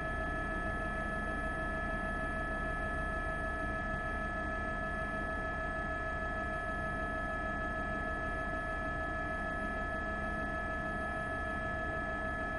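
News helicopter noise on the aircraft's own audio feed: a steady whine of several fixed tones over a hiss and a low rumble, unchanging throughout.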